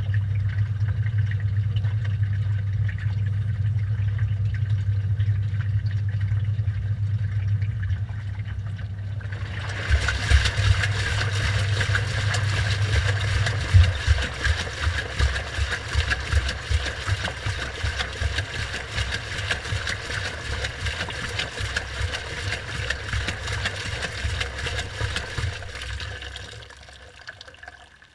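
Washing machine running, heard from inside the drum: a steady low hum, then about ten seconds in a rush of water with irregular low thuds and sloshing, fading out near the end.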